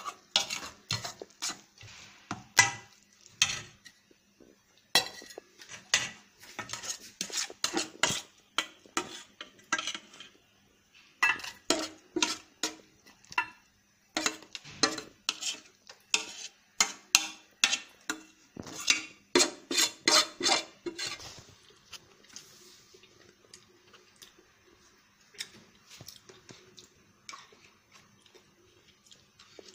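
Steel spoon scraping and clinking against a stainless steel pan, scooping crumbly milk kova out into another steel bowl in quick irregular strokes. The clatter stops about two-thirds of the way through, leaving only a few faint ticks.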